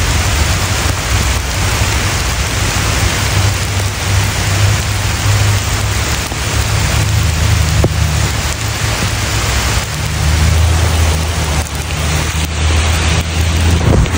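Steady rain falling on leaves and ground, a dense even hiss, with a low rumble underneath.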